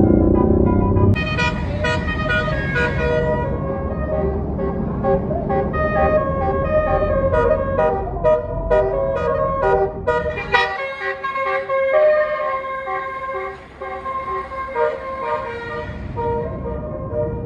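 Tour bus's Basuri 'telolet' multi-tone horn playing a quick tune of changing notes, starting about a second in, over the low rumble of the bus's engine. The engine rumble drops away about ten seconds in while the horn tune carries on.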